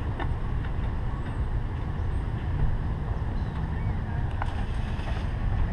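The engine of Tankenstein, a homemade tracked truck, running with a steady low rumble while it is driven on a flatbed trailer.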